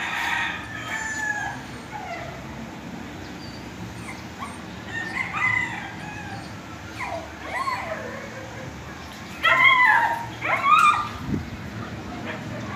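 A few short animal calls, each falling in pitch, spaced a second or more apart. The loudest two come about three-quarters of the way in, over a steady low background hum.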